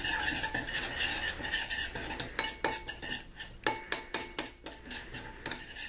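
A metal spoon stirring dry seasoning powders and herb flakes in a ceramic bowl: a gritty scraping, with the spoon clinking against the bowl. From about two seconds in, the clinks come about three a second.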